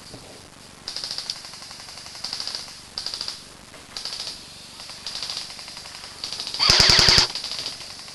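Electric airsoft rifles firing full-auto bursts of rapid clicks, many shots a second. Several shorter, fainter bursts come from other guns across the field, then one loud close burst of about half a second near the end.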